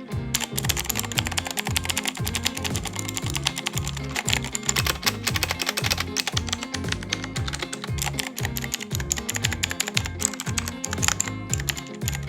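Rapid, continuous typing on a LEAVEN K550 87-key mechanical keyboard with green clicky switches, dense keystroke clicks to test how it sounds. Background music with a steady bass beat runs underneath.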